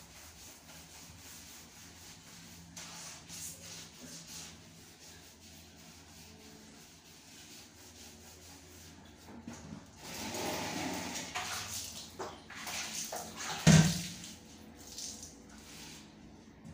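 Plastic basins handled on a tiled bathroom floor: about ten seconds in, a few seconds of sloshing and scraping, then one loud thump as a basin is set down. A faint steady low hum runs underneath.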